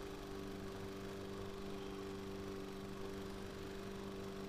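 Steady machine hum with a few constant low tones, unchanging throughout.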